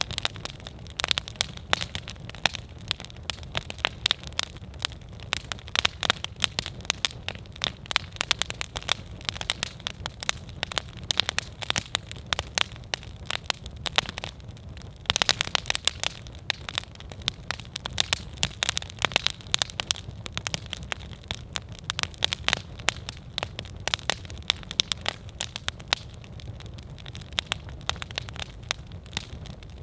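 Wood campfire burning, with dense, irregular crackles and pops over a steady low rumble of flame; the crackling briefly thickens about halfway through.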